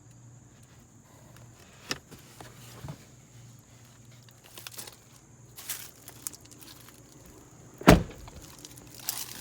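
A pickup truck's door slamming shut with one loud thump about eight seconds in, amid a few lighter clicks and knocks of handling.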